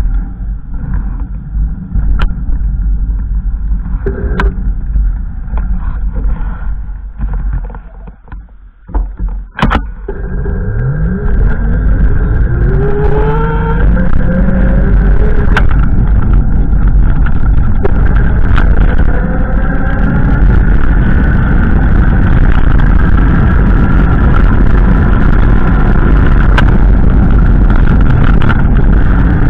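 Low rumbling noise, then about ten seconds in a motor vehicle's engine speeds up, its pitch rising in steps as if through gears, and settles into steady running.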